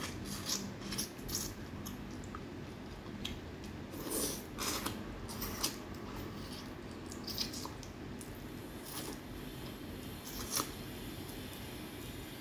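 Close-up eating sounds of a person eating crawfish tails by hand: irregular short smacks from lips and fingers, with chewing in between.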